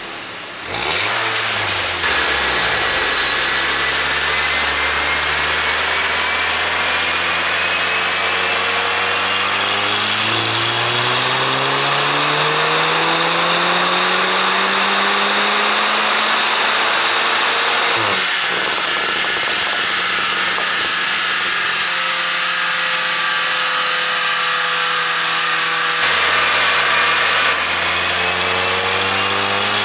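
2011 VW Golf GTI Mk6's 2.0-litre turbocharged four-cylinder engine and exhaust, running an ECU pop tune. The engine pitch climbs slowly for about sixteen seconds and drops sharply. It holds steady, falls again, and begins to climb near the end.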